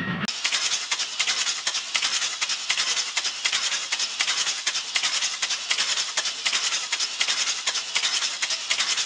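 Steam locomotive running, heard as fast, even, rhythmic hissing chuffs of steam with little low rumble. It cuts in abruptly just after the start, replacing a deeper rumbling sound.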